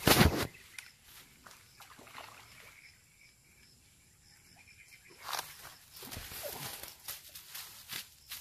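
A loud knock about the camera right at the start, then faint scattered clicks and rustling of clothing and grass as someone moves close in front of it, busier near the end.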